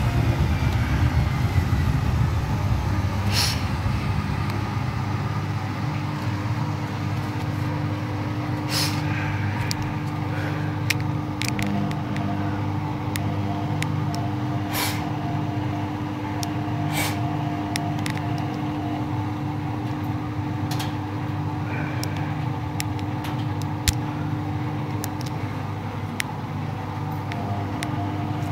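Beko washing machine running: a steady motor hum and rumble with a held tone, dotted with occasional sharp clicks and ticks.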